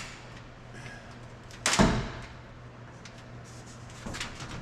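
One loud thump about two seconds in, from a sheet-metal cab skin panel being pushed up into place, with a few light knocks before and after.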